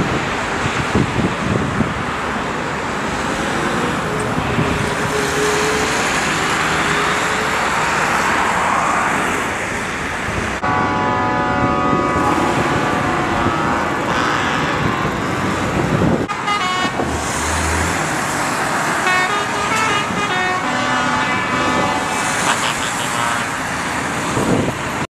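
A column of farm tractors driving past with their engines running as a steady noisy rumble. From about ten seconds in, horns honk in long blasts, followed by shorter repeated toots near the end.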